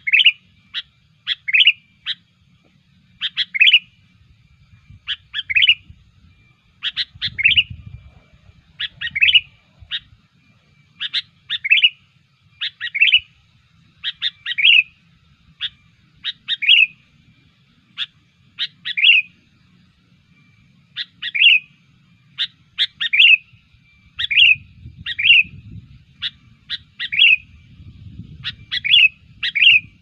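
Sooty-headed bulbul (kutilang) calling over and over, a chatty lure call of the kind used to draw in wild bulbuls. Each short phrase, about every second or two, is a couple of quick sharp notes and then a falling whistled note.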